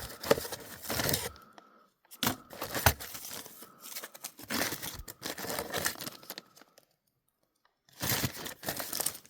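Rustling and crinkling of bags and packing as a box of small vintage sewing machine parts is sorted through by hand, with a few light clicks of metal parts knocking together. It comes in several bursts separated by short pauses.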